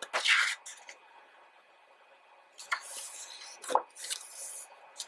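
Pages of a large, heavy photobook being turned by hand: a few papery swishes and rustles, with a soft thump a little past halfway.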